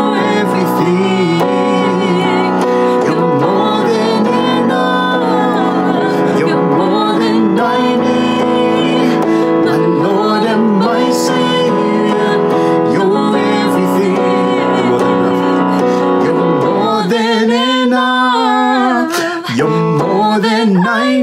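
A woman and a man singing a slow worship song together over sustained chords on a keyboard. The low keyboard notes drop away for a while near the end, leaving mostly the voices and higher chords.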